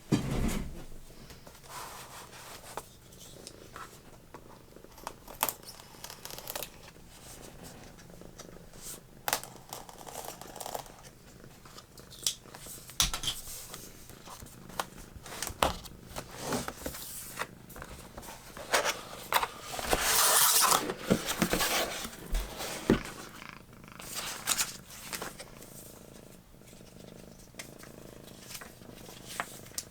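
A cat purring steadily beneath the rustling, clicks and taps of a keyboard box and its packaging being opened and handled, with a louder stretch of crinkling packaging about twenty seconds in.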